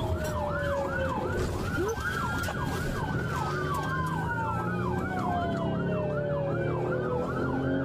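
Police car sirens on yelp, rising and falling fast, about three sweeps a second, with a slower wail falling in pitch underneath, over vehicle engine and road noise.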